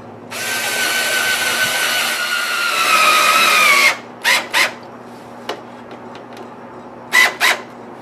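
Power drill running into oak wood for about three and a half seconds, its motor pitch dropping slightly as it loads up, then two pairs of short trigger bursts.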